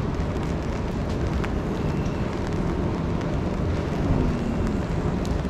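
Steady outdoor noise of a rainy street: a low rumble with a hiss of rain.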